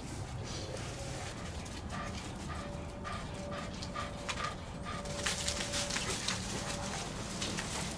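Ratting dogs whining, a thin high whine that breaks off and starts again. In the second half it is joined by scratchy rustling and ticking as the dogs nose and dig through wood chips.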